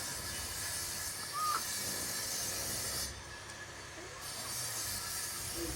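Steady high hiss that cuts out for about a second just after the three-second mark, then returns. A single short rising chirp sounds about a second and a half in.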